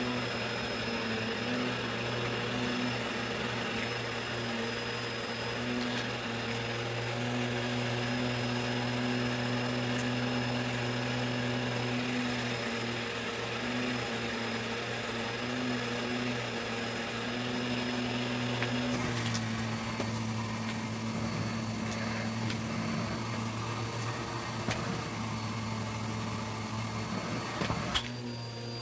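Bissell vacuum cleaner running with a steady motor hum and high whine over the rush of air as a hose attachment sucks at a shag rug. About two-thirds of the way through, the motor note drops slightly and the airflow sound changes.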